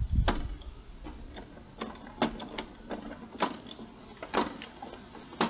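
Screwdriver driving a bolt into the plastic back housing of an Epson L120 printer: a string of irregular, sharp clicks and taps.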